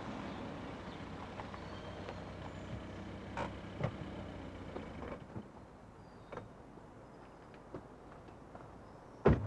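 A car's engine running as it rolls up and stops, dropping off about halfway through, with a few light clicks. Near the end comes one loud car-door slam.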